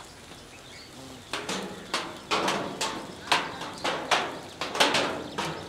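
A run of sharp hand claps, about two or three a second, starting about a second in and keeping on steadily.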